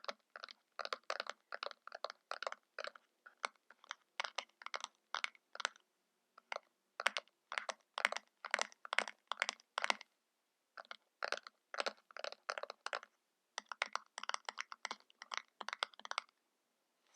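ASMR tapping: fingernails tapping on makeup packaging in quick runs of about four taps a second, with two short pauses.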